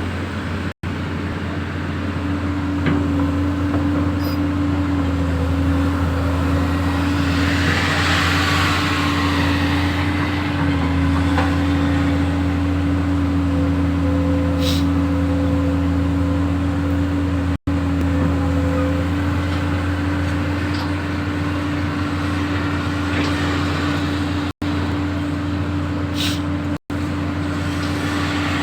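A machine's engine running steadily at a constant pitch, with a brief hiss about eight seconds in. The sound cuts out for an instant four times.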